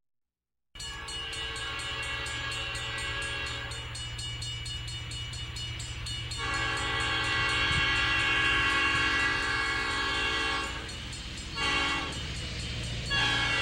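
Train horn sounding several notes at once in held blasts, the longest about four seconds, over the fast, steady clatter and rumble of a moving train.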